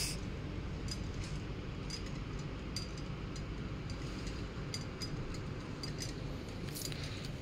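Shop background noise: a steady low hum with a few faint, scattered clicks and clinks.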